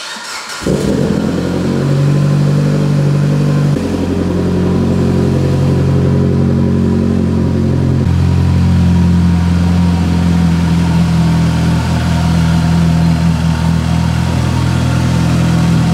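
Mitsubishi Lancer Evolution VIII's turbocharged 2.0-litre four-cylinder engine starting up about half a second in, then idling steadily.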